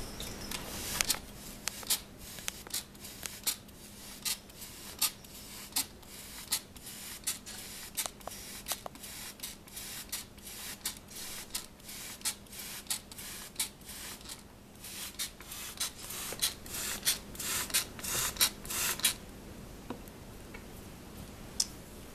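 Hand-held spray bottle misting a terrarium: a short spray with each trigger pull, repeated about twice a second, stopping about 19 seconds in.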